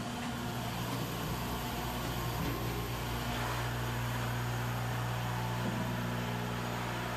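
Ship's engine-room machinery running: a steady drone with a strong low hum and a higher rushing noise over it.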